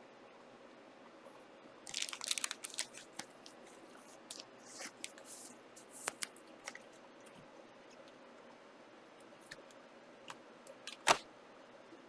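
Trading cards and card packs being handled: crinkling bursts with light clicks and taps, and a sharp click about a second before the end.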